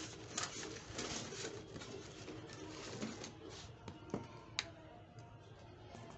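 Handling noise of unboxing: a corrugated plastic suction hose and packing being rustled and pulled out of a cardboard box with foam packing, with a couple of sharp plastic clicks a little past the middle.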